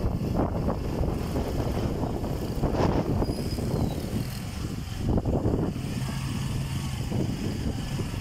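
Motorcycle engines running at low speed in light road traffic, with wind buffeting the microphone; a steady low engine hum sets in about six seconds in.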